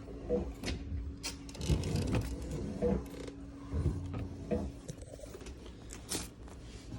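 A dishwasher door being worked open and closed on its just-reconnected hinge springs and cables: a run of irregular clunks, clicks and short rattles, over a faint steady hum.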